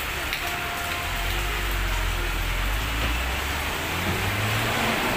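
Steady rain falling, an even hiss, with a low rumble underneath that is strongest from about one to three and a half seconds in.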